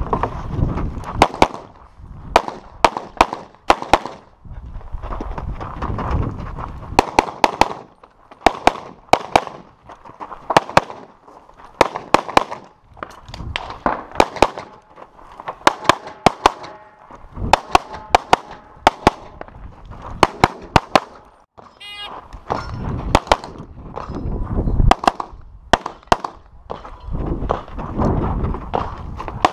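Competition pistol fire: strings of shots in quick pairs and bursts as a USPSA stage is run. A short electronic shot-timer start beep sounds about two-thirds of the way in, followed by more rapid shots.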